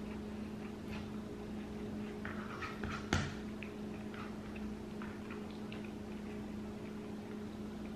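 Quiet eating sounds: soft clicks and mouth noises of a bite of chicken pot pie being taken and chewed, with one sharper clink of a utensil about three seconds in, over a steady low hum.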